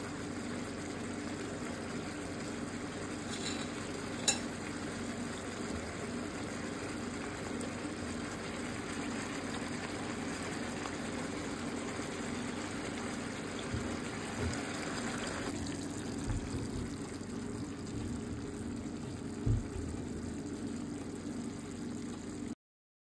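Beef slices and onion rings simmering in soy-sauce braising liquid in a frying pan, a steady sizzle over a low hum, cooking so the beef softens. A single sharp click comes about four seconds in, the hiss thins about fifteen seconds in, and a few soft knocks follow.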